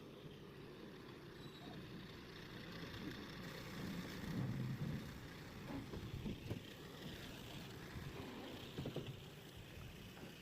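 Mahindra backhoe loader's engine running, getting louder about four seconds in, with a few short knocks.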